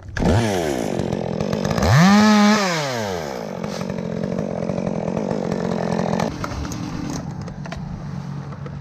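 Two-stroke chainsaw revved: the engine note climbs just after the start and again about two seconds in, rising and falling, then the saw runs steadily at high speed. About six seconds in the note drops to a lower, steady run.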